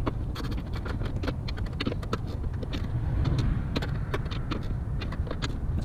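Short 3/8-inch ratchet clicking in quick irregular runs as the clutch master cylinder's nuts are tightened against the firewall, over a steady low rumble.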